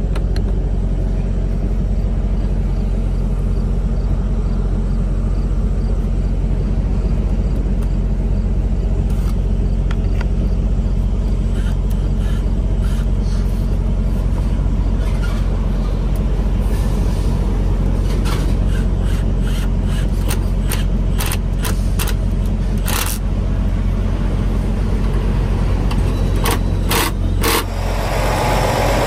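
Large diesel engine idling steadily. In the second half come scattered sharp metallic clicks and clanks of hand tools and sockets being worked.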